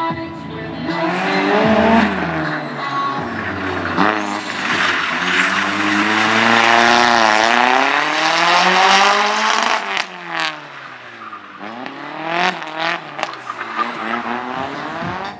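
Race car engine at a slalom event, revving hard with its pitch repeatedly climbing and dropping as the driver accelerates, shifts and lifts off through the course. There is a sharp drop in pitch about ten seconds in.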